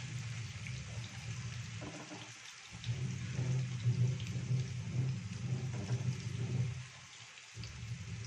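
Marinated soya chunks sizzling in hot oil in a frying pan, with a few light scrapes as they are stirred. A steady low hum runs underneath and drops out briefly twice.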